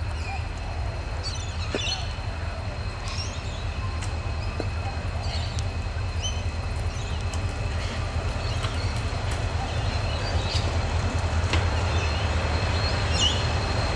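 XR-class diesel locomotive approaching slowly at the head of a steel freight train: a steady, deep engine rumble that grows gradually louder as it draws near.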